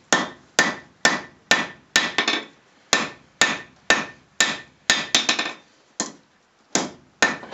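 Hand hammer striking a red-hot 1084 steel knife blank on an anvil, about two blows a second. Each blow is a sharp clank with a brief ring, and some are followed at once by a lighter tap. There is a short pause near the end, then two more blows.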